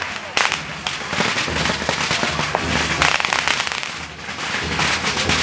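Strings of firecrackers going off in a dense, rapid crackle of sharp bangs, easing briefly about four seconds in before picking up again.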